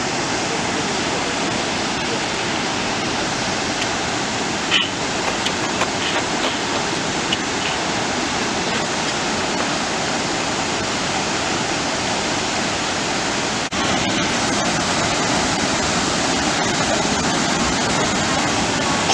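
Waterfall rushing, a steady even roar of falling water, with a few faint clicks in the middle and a short drop near the end of the first two thirds after which it is slightly louder.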